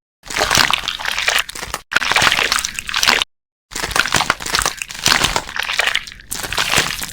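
Slime being squeezed and worked by hand, giving wet squelching with dense little crackles and pops. It comes in three stretches broken off abruptly by short gaps of dead silence.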